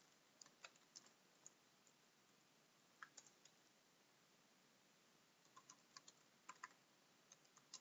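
Faint computer keyboard keystrokes as a command is typed: scattered single taps, a short run about three seconds in, and a denser run from about five and a half to seven seconds.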